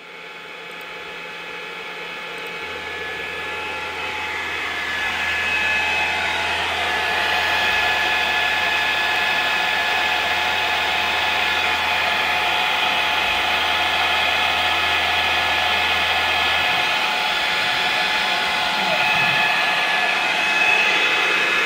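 CNC router machinery running: a whirring that builds over the first few seconds and then holds steady with a high whine, while a low hum underneath cuts out about 17 seconds in.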